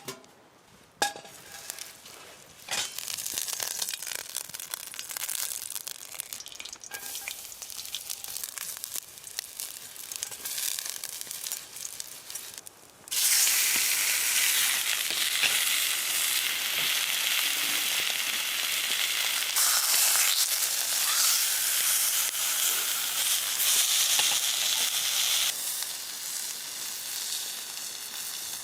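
Food sizzling and frying in a hot pan, with a few clinks at first. About halfway through, the sizzle jumps suddenly much louder and stays loud, easing slightly near the end.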